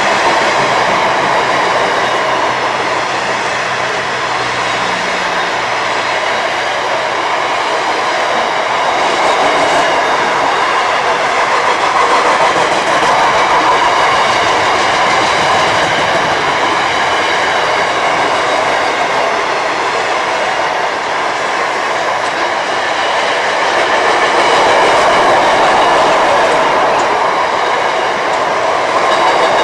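Train wheels rolling on rail as a train passes close by: a loud, steady rolling noise that swells slightly a couple of times.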